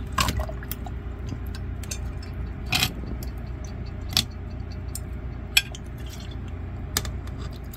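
Glassware and ice clinking and tapping while highball drinks are mixed: a handful of sharp clinks spaced a second or more apart, over a low steady hum.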